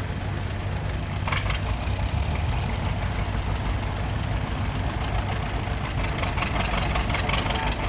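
Vintage farm tractor engines running steadily as a parade of old Ford and John Deere tractors drives past. There are bursts of rapid clatter about a second in and again near the end.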